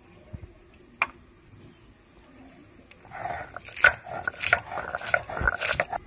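Stone roller crushing green chillies on a flat stone grinding slab (sil-batan): a single knock about a second in, then from about three seconds a run of rhythmic grinding strokes with sharp clicks, together with a repeated high whining sound.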